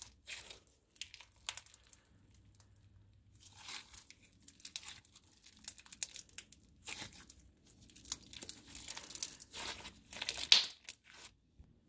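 Thick clear slime packed with sprinkles and charms being stretched, folded and squeezed by hand, giving irregular sticky crackles and crinkles, loudest about ten seconds in.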